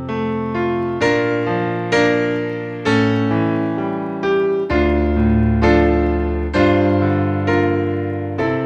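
Slow solo piano music, a chord struck about once a second and left to ring out.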